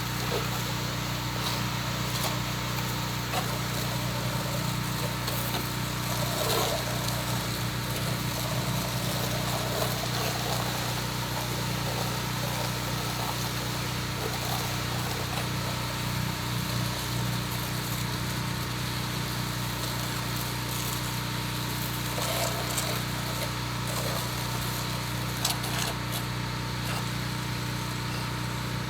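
Small gasoline engine of a pressure washer running steadily at a constant speed.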